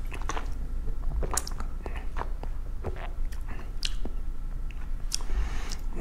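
A mouthful of red wine being sipped and worked around the mouth to taste it: a string of short, irregular wet slurps and mouth noises.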